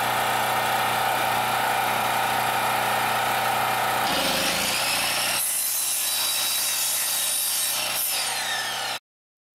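Electric miter saw running and cutting through small branch wood and scrap board. The sound shifts about four seconds in and stops abruptly near the end.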